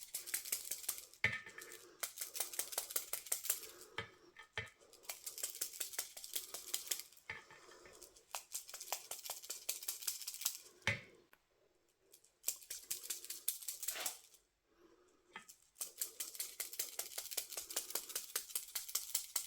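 Water brush pen loaded with a Perfect Pearls shimmer mix being tapped over and over to splatter droplets onto cardstock. The sound is runs of quick, light ticks lasting a few seconds each, with short pauses between them.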